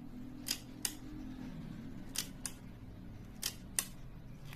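Pronto leaf shutter on a Dr. August Nagel Vollenda folding camera being worked by hand: three pairs of sharp metallic clicks, the two clicks of each pair about a third of a second apart.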